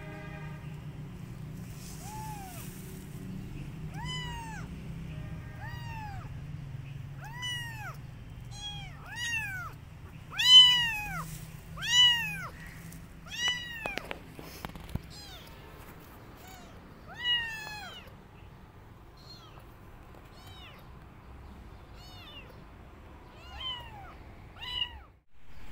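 Young kittens meowing over and over: short, high, arching meows about one a second, loudest a little before halfway and sparser toward the end.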